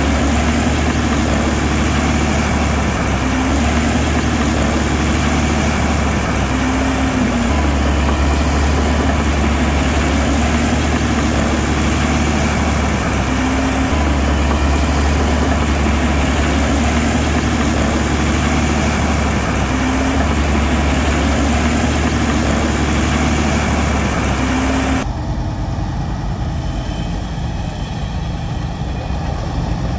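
Heavy construction machinery's diesel engine running steadily at a low pitch. About 25 seconds in, the sound cuts abruptly to a different, duller recording of engine running.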